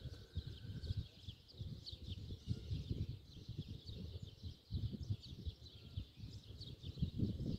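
Small birds chirping many times over, with an irregular low rumble that swells and fades underneath, loudest near the end.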